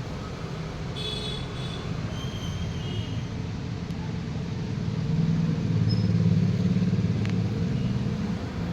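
CNC wood router running while carving, a steady low rumble with a faint steady hum, growing louder about five seconds in and easing near the end.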